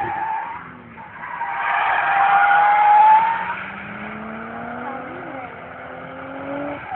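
Drift car sliding through a bend, its tyres squealing loudest about two to three seconds in. After that the engine note climbs slowly and steadily as the slide is held.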